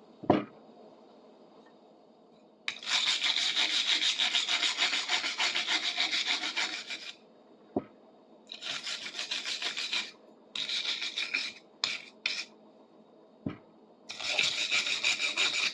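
Wire brush scrubbing rust and old paint off a cast-iron shingle puller in fast back-and-forth strokes, in four spells of a few seconds each, with a few light knocks in the pauses.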